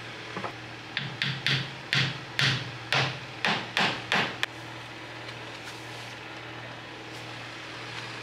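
About ten hammer blows in quick succession, two to three a second, stopping about four and a half seconds in, over a steady low hum.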